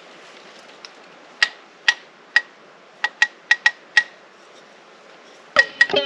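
Sparse, sharp percussive clicks with a short ringing tone, about eight in an uneven rhythm over a faint hiss, and near the end a full beat with plucked-string sounds kicks in: a track built from field-recorded sounds of self-made instruments.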